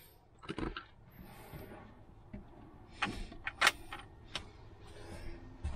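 A handful of scattered clicks and knocks from someone handling things at wooden cabinets while fetching a screwdriver, the sharpest a little before four seconds in.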